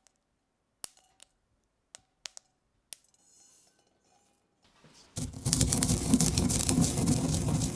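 A few light isolated clicks, then from about five seconds in a pestle grinding toasted fennel, cumin and mustard seeds in a stone mortar: a loud, continuous scraping and crunching.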